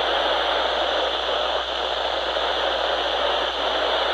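Steady hiss of radio static from a receiver, with no voice on the channel.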